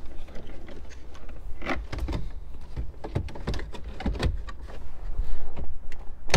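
Plastic knocks, scrapes and clicks of an aftermarket double-DIN radio in its plastic dash kit being pushed into the dash opening, with a sharp click near the end.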